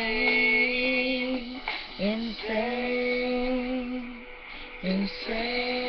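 A woman singing along to recorded music, holding three long, steady notes with short breaks between them.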